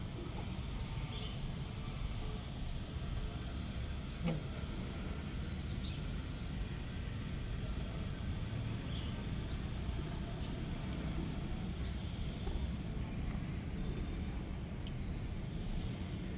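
Short, high rising chirps repeating every second or two over a steady low background rumble, with a single knock about four seconds in.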